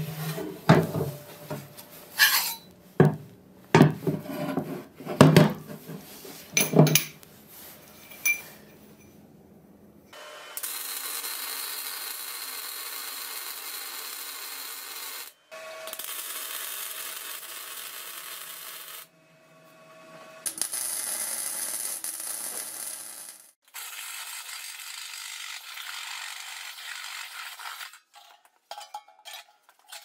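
A series of sharp metal knocks and clanks, then MIG welding on steel: several runs of steady crackling hiss a few seconds each, with short breaks between beads.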